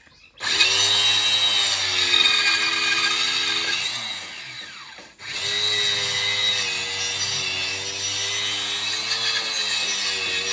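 Small corded handheld power tool, a sander or planer, running along the face of a plywood sheet: a steady motor whine with a hiss of abrasion. It sags about four seconds in, cuts out briefly near the five-second mark, then runs on steadily.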